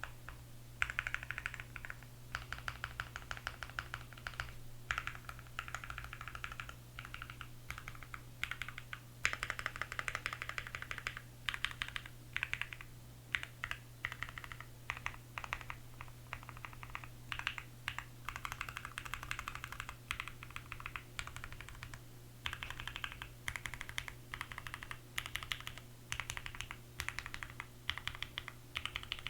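Keychron Q1 mechanical keyboard with an aluminum plate, lubed Kiwi tactile switches, Durock V2 stabilizers and foam and tape mods, typed on in quick runs of keystrokes with short pauses between them and a few louder single strikes.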